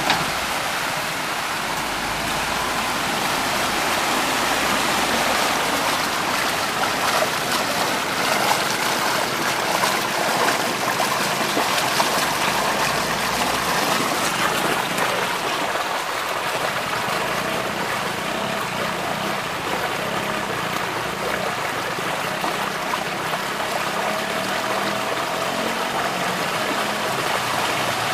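Floodwater rushing and gurgling as it swirls down into a street drain, a steady gushing flow. A heavy truck's engine runs low underneath during the first few seconds.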